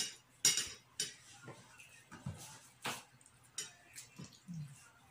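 Eating at a table: a string of irregular sharp clicks and taps as broasted chicken is pulled apart by hand on a plate and eaten.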